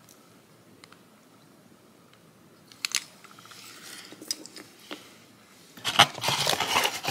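Small plastic containers being handled and set down: a couple of light clicks about three seconds in and another near five, then a louder, busier run of clicking and rattling from about six seconds.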